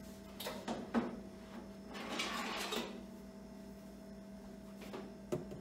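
Knocks and a brief scraping rattle of a wire-mesh air-fryer tray being fetched and handled in a kitchen: two knocks near the start, a scraping clatter about two seconds in, and two more knocks near the end.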